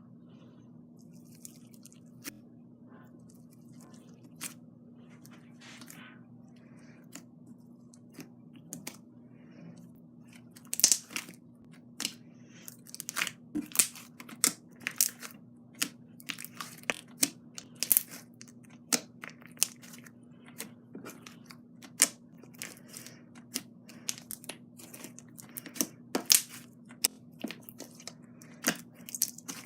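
Glossy slime being kneaded by hand with soft clay worked in, making wet, sticky clicks and pops. The pops are faint and sparse at first, then sharper and more frequent, one or two a second, from about a third of the way in.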